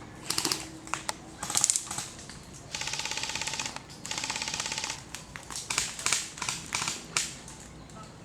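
Airsoft guns firing: scattered single sharp shots, and two full-auto bursts of about a second each, rapid even clicking, around three and four seconds in.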